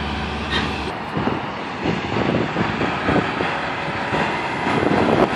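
Passing road traffic: a steady rush of tyre and engine noise that grows louder near the end, with no horn sounding.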